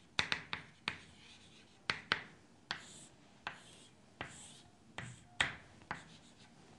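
Chalk on a chalkboard: quick taps and short strokes of handwriting, then several longer scraping strokes about three to four and a half seconds in as straight lines are drawn.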